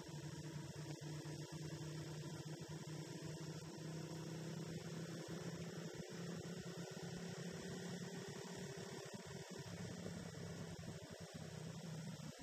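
A steady low hum with a faint hiss, holding one pitch without rising or falling.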